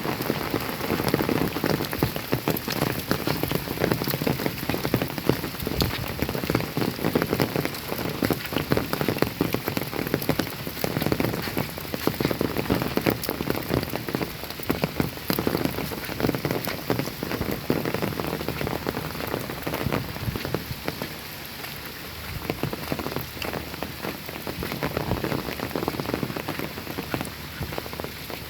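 Steady rain falling and drops pattering on surfaces, with many close individual drop ticks, easing slightly about two-thirds of the way in.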